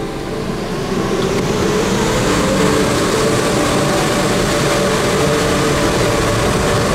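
Automatic car wash machinery running around the car, heard from inside the cabin: a steady rushing noise with a mechanical hum that builds over the first couple of seconds and then holds.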